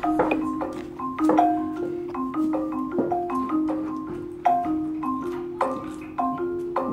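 Background music: a light tune of short, struck, marimba-like notes over a repeating pair of alternating lower notes.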